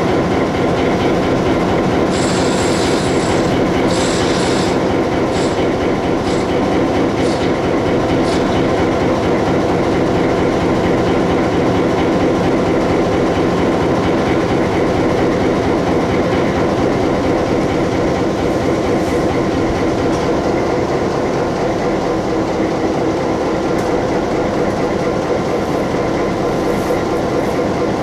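Freight train moving on the rails behind an EMD SW-800 switcher locomotive: a loud, steady rumble of engine and wheels, with brief high-pitched wheel squeals a few times in the first eight seconds.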